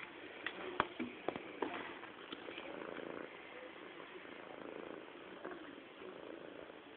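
Domestic cat purring steadily, with a few sharp clicks in the first two seconds.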